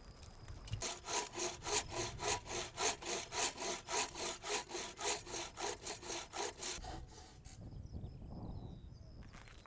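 Hand saw cutting through a wooden plank in quick, even strokes, about three to four a second, stopping about three-quarters of the way in.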